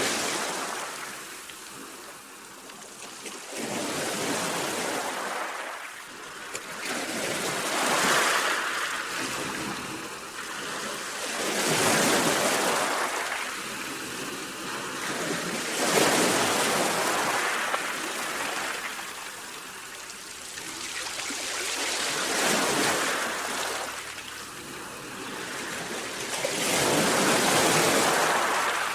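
Sea waves washing in and drawing back, a rushing hiss that swells and fades in a slow rhythm, about one surge every four to five seconds.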